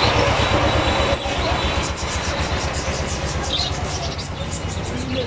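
An engine running with a steady, fast-pulsing rumble, along with the rustle of broken maize kernels poured from a plastic scoop into a plastic bag.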